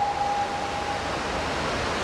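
The end of Dukedog 4-4-0 No. 9017's steam whistle: one held note fading out within the first second, giving way to a steady rushing noise.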